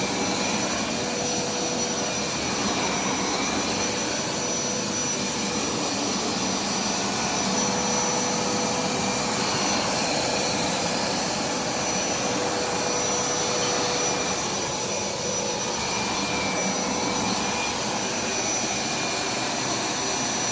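Hoover SmartWash FH52000 carpet cleaner running steadily: a continuous motor rush with a thin steady whine.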